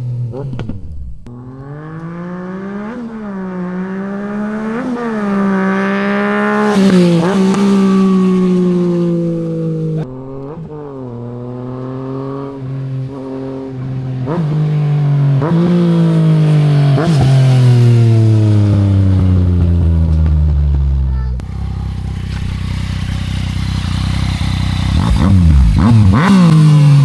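2017 Yamaha XSR900's 847 cc inline three-cylinder engine running through a full Delkevic exhaust system with no decibel killer, revved in repeated short throttle blips, each rising and falling in pitch. In one stretch the revs run down in a long falling sweep. The sound comes in several separate takes, with cuts at about 10 and 21 seconds in.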